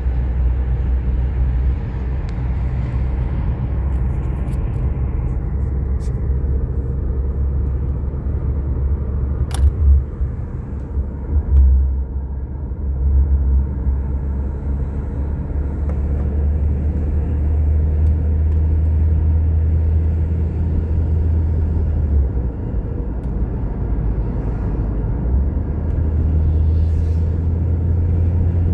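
Car driving: a steady low rumble of road and engine noise, swelling and easing now and then.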